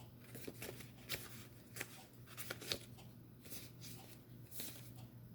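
Tarot cards being shuffled and handled by hand: a run of faint, quick swishes and soft clicks at irregular spacing, over a steady low hum.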